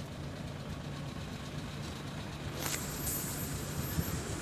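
Tram approaching along a city street: a steady low hum over general street noise. A little past halfway, a thin high whine comes in for about a second and a half.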